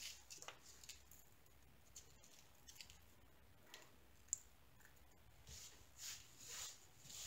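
Near silence with faint, scattered clicks of small plastic diamond-painting drills being picked off a tabletop and dropped into a small container. One sharper tick comes a little past four seconds in, and hands rustle softly near the end.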